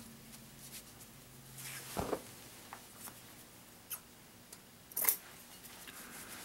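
Scissors cutting a strip of adhesive strapping tape on a foot: a few short, quiet snips and rustles of tape and hands, spread out with pauses between them.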